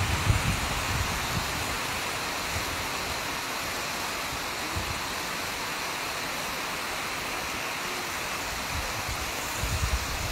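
Heavy monsoon rain falling in a steady hiss, with wind buffeting the microphone in low gusts at the start and again near the end.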